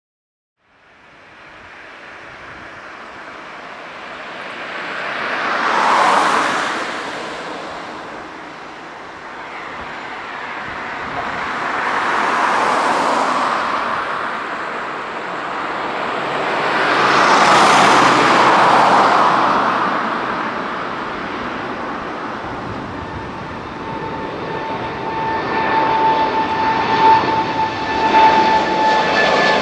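Boeing 787-9's twin jet engines at takeoff thrust, starting about a second in: a loud, rushing roar that swells and fades three times as the airliner rolls, lifts off and climbs out. Near the end, as it climbs overhead, the roar grows again and a steady whine from the engine fans comes through, dropping slightly in pitch.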